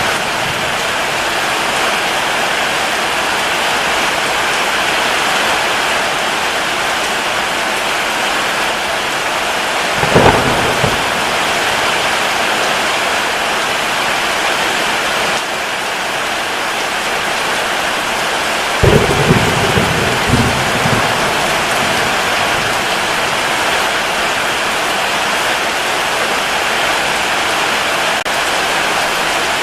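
Steady rain falling, with a thunderclap about a third of the way in and another just past the middle, the second followed by a couple of smaller cracks.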